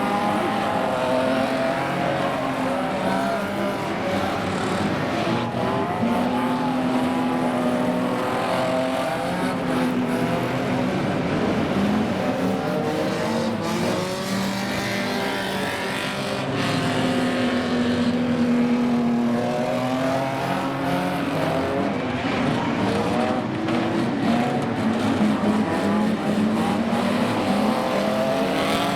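Several banger racing cars running flat out around the track together, their engines rising and falling in pitch as they rev through the bends, over tyre and track noise.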